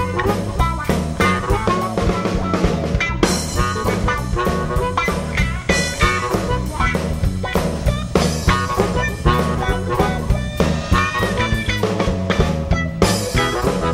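A band playing an instrumental break between sung verses: electric guitar, bass guitar and drum kit on a steady, driving beat.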